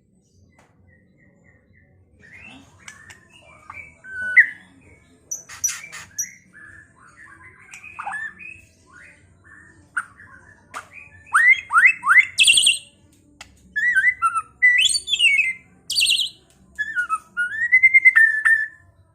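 White-rumped shama (murai batu) singing a varied song of whistles, chirps and quick slurred notes. It starts about two seconds in and is loudest in the second half, ending on a rising-and-falling whistled phrase.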